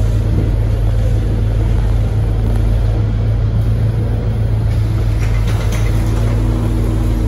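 A Scania K230UB single-deck bus's rear diesel engine and drivetrain, heard from inside the cabin while the bus is under way: a steady, loud low drone. A higher steady hum joins about six seconds in.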